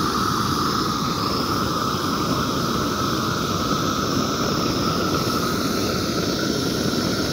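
Propane wand torch burning with a steady, even rushing noise as its flame melts a rope of tar crack-filler into a driveway crack.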